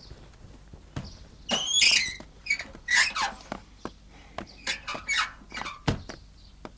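Heavy iron gates creaking on their hinges: several drawn-out squeals that bend up and down in pitch, with a few dull knocks.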